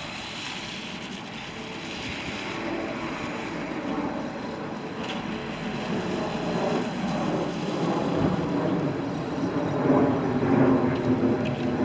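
Rumbling vehicle noise that grows steadily louder, loudest near the end.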